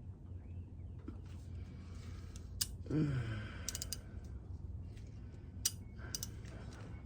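Scattered sharp clicks of a ratchet with a T45 bit working on a tight oil drain plug, with a short grunt of effort about three seconds in as the plug is strained to break loose.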